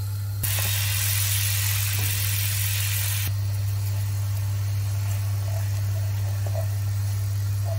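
Butter sizzling and foaming in a cast-iron pan for about three seconds, starting and cutting off abruptly, over a steady low hum that carries on after the sizzle stops.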